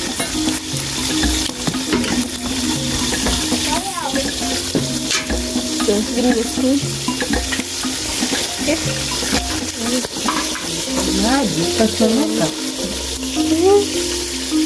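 Fish frying in hot oil in a pot, a steady sizzle, with steady low tones and some wavering pitched sounds in the background.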